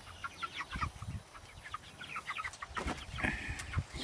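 A flock of four-week-old meat chickens peeping and clucking: many short, overlapping, downward-sliding calls, with one longer held call about three seconds in.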